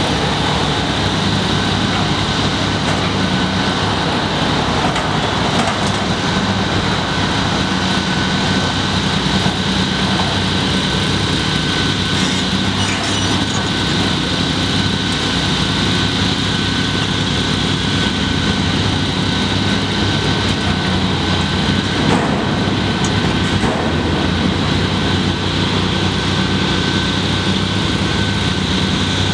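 Diesel engine of a Komatsu PC350 demolition excavator running steadily under working load as its shear attachment tears at the building, with a thin steady high whine and hiss over it. A few faint knocks come through, about twelve seconds in and again near twenty-two seconds.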